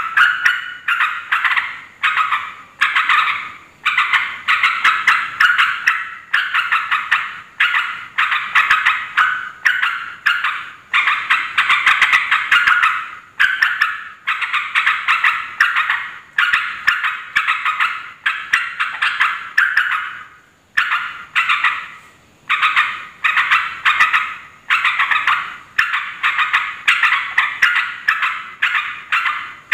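Yellow-vented bulbul (trucuk) chattering loudly and without let-up: quick bubbly phrases of about a second each, one after another with brief breaks. This is the noisy call used as a lure to provoke other bulbuls into answering.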